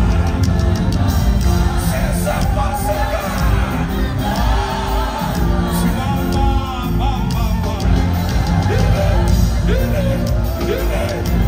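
Live gospel choir and band performing, with a heavy bass beat under the singing, and the audience shouting and whooping along. Heard from within the crowd.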